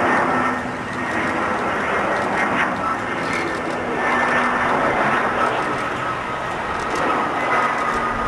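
Airbus A320's twin jet engines at approach power as the airliner comes in low to land: a steady rumble with a high whine holding a couple of fixed tones.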